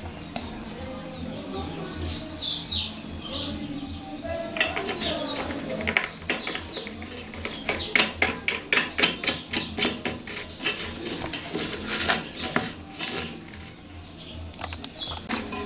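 A rapid run of sharp knocks, about two to three a second, lasting several seconds, with birds chirping before it starts and again near the end.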